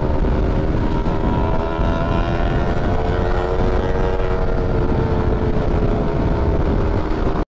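Motor scooter engine running at a steady high cruising speed, its note sinking slightly in the second half, with heavy wind rumble on the microphone.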